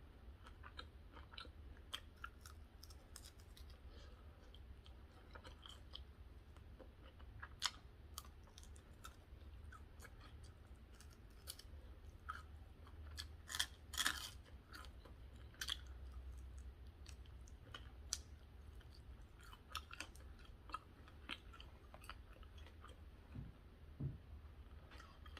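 A person chewing food close to the microphone, with wet mouth clicks and crisp crunches throughout; the loudest crunches come about 8 seconds in and again around 14 seconds.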